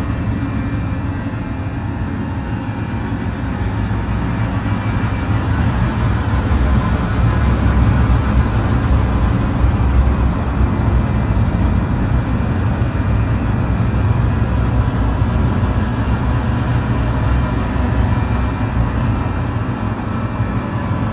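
Dark ambient music: a deep, steady rumbling drone with faint sustained high tones above it, growing a little louder toward the middle and then easing off.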